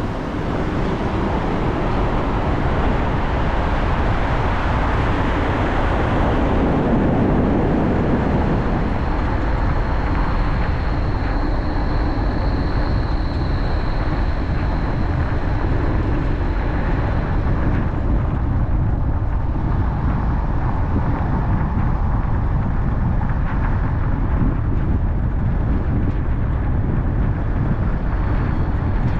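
Steady road noise of a car driving: tyres and engine running, with a louder swell about seven seconds in.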